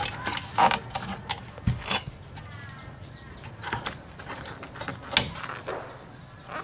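Scattered clicks and knocks of gloved hands working inside an opened inverter welding machine, pulling plug-in wire connectors off the boards and shifting the metal-and-plastic housing.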